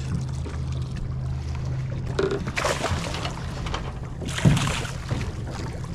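Yamaha outboard motor running with a steady low hum, while a hooked leopard shark splashes at the surface beside the boat twice, about two and a half and four and a half seconds in.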